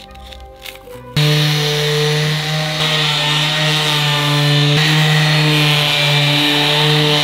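An electric power tool switches on about a second in and runs steadily against wood. Its motor gives a steady hum under a loud hissing grind.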